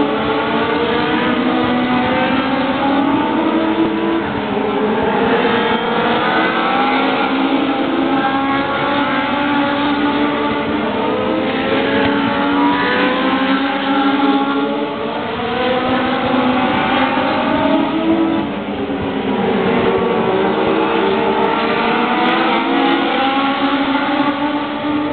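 Several stock car engines racing together on a circle track, loud and continuous, their pitches rising and falling as the cars accelerate and lift through the laps.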